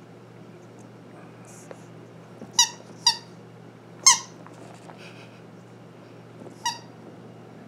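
Rubber squeaky toy squeaking as a Maltese puppy chews on it: four short, high squeaks, three close together in the middle and one more near the end.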